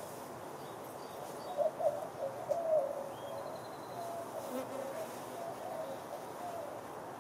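Honeybees flying around the hive entrance, their buzzing wavering up and down in pitch as individual bees pass close, loudest about two seconds in.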